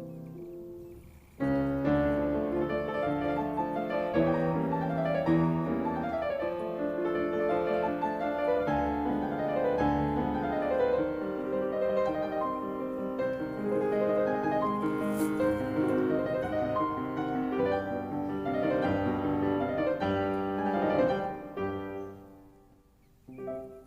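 Background piano music playing a melody, starting softly and swelling about a second and a half in, then fading out near the end.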